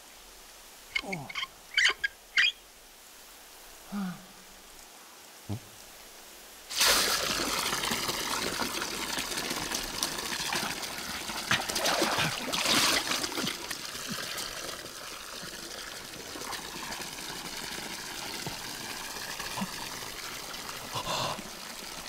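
Water pouring from a tap, starting suddenly about seven seconds in as a full gushing stream and slowly thinning out toward the end. Before it come a few short squeaks and a couple of soft knocks.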